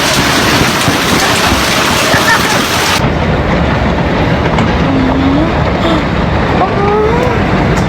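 Hail and rain pelting down as a loud, dense hiss. About three seconds in it cuts abruptly to another recording of the storm, steady but duller, with less hiss.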